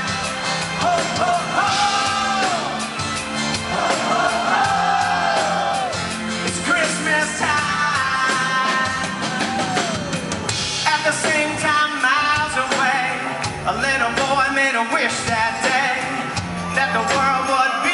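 A live pop-rock band playing with singing: electric guitar, bass and drums, over a concert hall's sound system.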